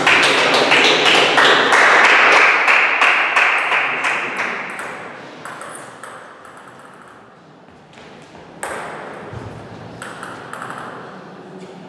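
Sharp clicks of celluloid table tennis balls bouncing on tables and floor and striking bats, scattered irregularly. Over the first few seconds a loud rushing wash of noise sits under them and dies away.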